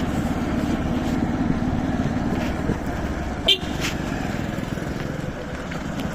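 A motor vehicle's engine running steadily, with a brief sharp sound about three and a half seconds in.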